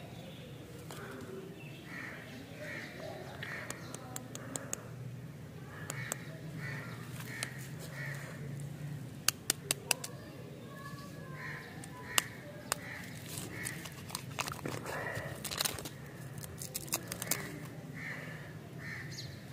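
Candy wrapper and paper insert being handled, crackling with sharp clicks, a quick run of four about halfway through. Crows caw in repeated series throughout.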